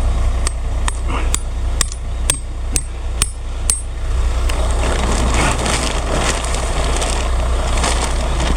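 Heavy truck diesel engine running steadily, with a series of about eight sharp knocks, roughly two a second, over the first four seconds. A rough, noisy rushing sound then joins the engine for the rest of the time.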